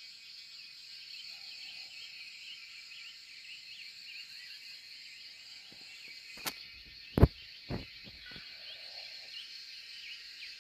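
Chorus of crickets and other insects: a steady high shrill hum with many quick chirps over it. Three sharp knocks come close together about seven seconds in, the middle one loudest.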